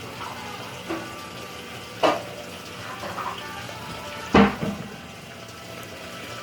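Clear slime being squished and pulled by hand, giving a few short wet squelches and pops; the loudest comes about four seconds in.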